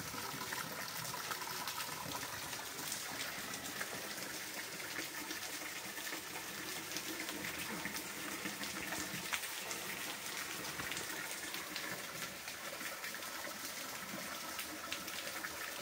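Rain falling steadily in a storm: a constant rushing hiss with many fine taps of drops striking.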